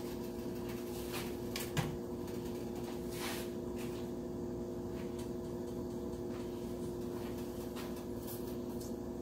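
Steady electrical hum throughout, with a few light clicks and knocks from crab legs being handled at the cooking pot.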